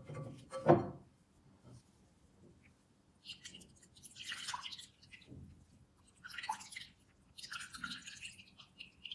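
Blended oat milk being squeezed through a cheesecloth, running and splashing into a glass bowl in three spells in the second half. Near the start there are a couple of knocks as the cloth and bowl are handled; the sharper second one is the loudest sound.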